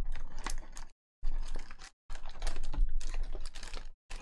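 Foil trading-card packs crinkling and clicking as they are handled and lifted out of a cardboard hobby box: a rapid run of small clicks and crackles, broken by a few short gaps.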